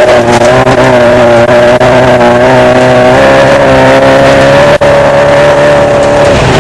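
Desert race car's engine running hard at high, fairly steady revs, heard loud from on board, with its pitch dropping a little about three seconds in and a few sharp knocks over the rough ground.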